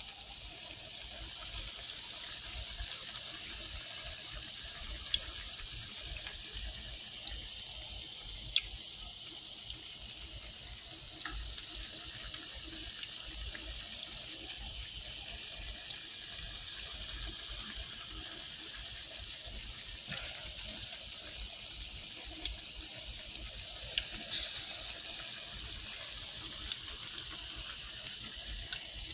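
Fish patties frying in a pan of oil: a steady high sizzle with scattered sharp pops and crackles.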